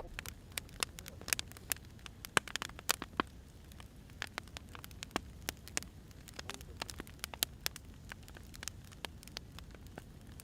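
Wood fire crackling: logs burning with frequent irregular sharp pops and snaps over a low steady rumble of the flames.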